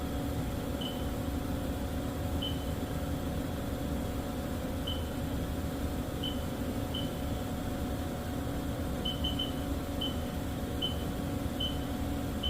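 Haas VF-3 vertical machining center under power: a steady hum with about a dozen short, high beeps at irregular intervals.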